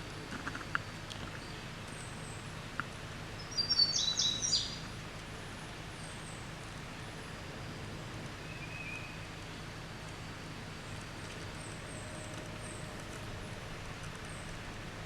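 A bird calls once about four seconds in, a short burst of sharp high chirps, over a steady low background hum. A few fainter high chirps come and go.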